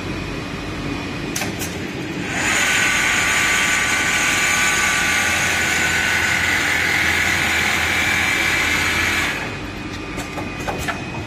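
Automatic single-head pattern sewing machine stitching: a loud steady whirr starts about two seconds in and stops about two seconds before the end, over a lower steady machine hum. There are a few light clicks before and after.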